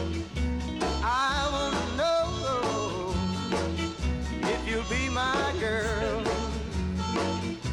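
Background music: an upbeat country-style song with a steady bouncing bass line and a wavering melody over it.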